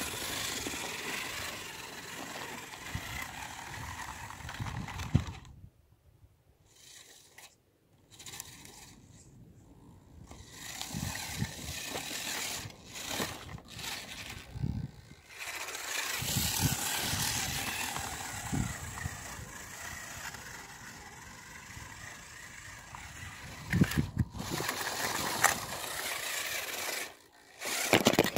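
Homemade RC car running over gravel and rough dirt: stones crunching and scraping under the tyres, with occasional knocks as it bumps over rocks. The noise stops abruptly a few times for a second or two between clips.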